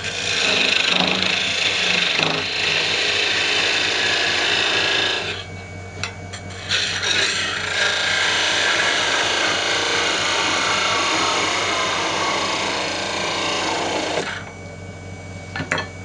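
Parting tool cutting into a wooden whistle blank spinning on a Delta 46-460 lathe: a harsh scraping hiss over the steady hum of the lathe. The tool is withdrawn briefly about five seconds in and goes back in, and on the second cut the scrape slowly drops in pitch as the cut deepens, until the piece parts off about two seconds before the end.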